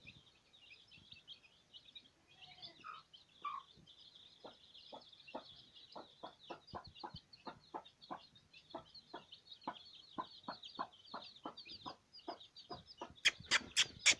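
A brood of Aseel chicks peeping without pause in high cheeps, while the mother hen gives short, low clucks about three times a second, the steady clucking of a hen with her chicks. Near the end come a few sharp, loud clicks.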